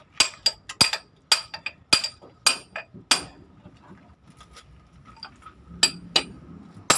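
Hammer blows on steel at a Hino truck's steering knuckle, working the kingpin: a run of sharp, ringing metal strikes about two a second for some three seconds, then after a pause three more near the end.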